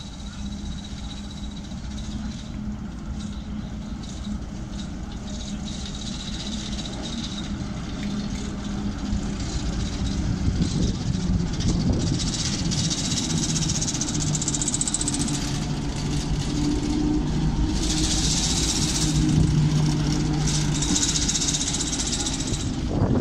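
British Rail Class 08 diesel shunter's English Electric six-cylinder engine running as the locomotive rolls slowly toward the listener and passes close by. It grows steadily louder, with several bursts of high hissing in the second half.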